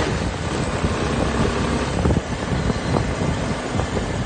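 Wind buffeting the microphone of a moving motorcycle, over the low rumble of its engine and tyres on a dirt road.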